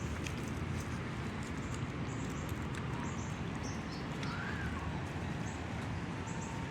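Outdoor street ambience: a steady low rumble, with small birds giving short, high chirps every second or so.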